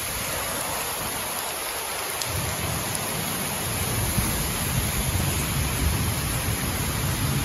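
Heavy rain falling, a steady even hiss, with runoff pouring off the highway bridge deck overhead. About two seconds in, a low rumble joins and the sound grows a little louder.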